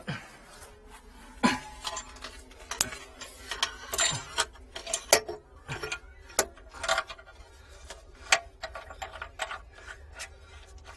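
Irregular metallic clicks, taps and clinks of brass pipe fittings and a ball valve being handled and fitted by hand, some knocks sharper than others with a short metallic ring.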